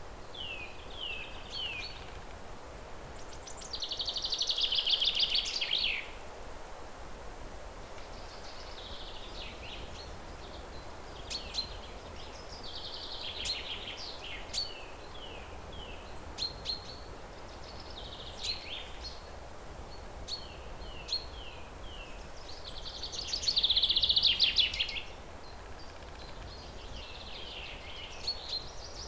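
Songbirds singing in repeated phrases: short falling chirps in quick series, with two longer, louder trilled phrases about four seconds in and again near twenty-four seconds. A faint steady low hum lies underneath.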